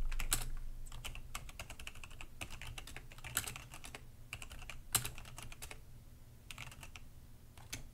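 Typing on a computer keyboard: irregular runs of quick key clicks with short pauses between them.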